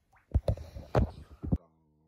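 Four or five dull thumps and knocks close to the microphone within about a second, typical of a phone or camera being handled or bumped. They cut off suddenly into a brief low steady hum.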